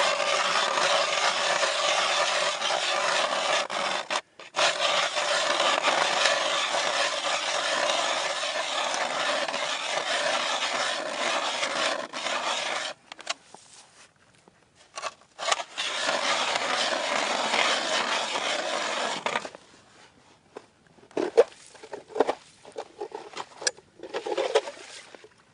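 Hand-cranked ice auger boring through pond ice: a steady rasping grind of the blades biting the ice. It breaks off briefly about four seconds in and for a few seconds around the middle, then starts again. Near the end it gives way to scattered scrapes and knocks.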